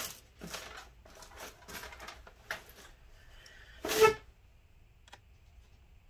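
Metal hand tools clicking and clattering as pliers are taken up and set on a stuck laptop screw, with one loud, short ringing clink just after four seconds.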